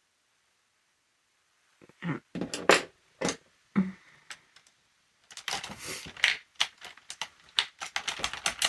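Small hard objects handled by hand: a few separate clicks and knocks, then from about five seconds in a quick run of clicking and clattering, like makeup brushes being sorted through to pick one out.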